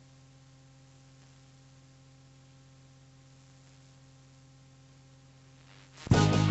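A faint steady electrical hum, then about six seconds in a song's band accompaniment starts suddenly and loudly.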